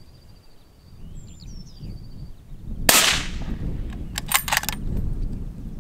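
A single shot from an Anschütz 1782 bolt-action hunting rifle in .308 Winchester about three seconds in, with a short echoing tail. About a second and a half later comes a quick run of clicks as the bolt is worked for the next shot.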